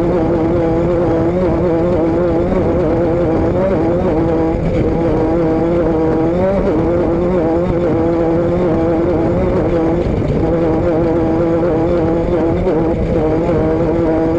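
Vehicle engine running at a steady speed, holding one even pitch with a brief dip and rise about six and a half seconds in, over a steady low rush of noise.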